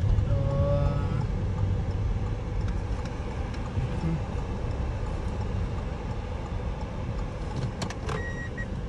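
Steady low road and engine rumble inside the cabin of a moving Hyundai car. A short pitched tone sounds just after the start. Near the end a high beep repeats about twice a second.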